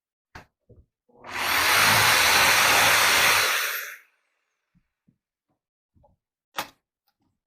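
An electric power tool starts, runs steadily for about three seconds, then winds down. A sharp click comes just before it and another a few seconds after.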